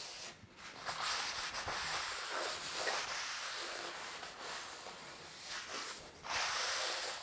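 Cloth soaked in acetone rubbed back and forth across the disc sander's metal table: a dry rubbing hiss in uneven strokes, with short breaks about half a second in and near six seconds in, as the greasy residue is wiped off.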